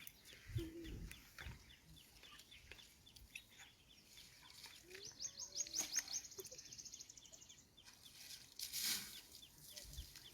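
Faint bird calls, with a fast high trill about halfway through and a brief rushing noise near the end.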